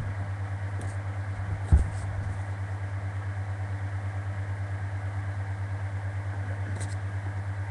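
Steady low hum with a fast, even pulse, with one sharp thump about two seconds in. A few faint clicks from scissors and plastic packaging being handled come near the end.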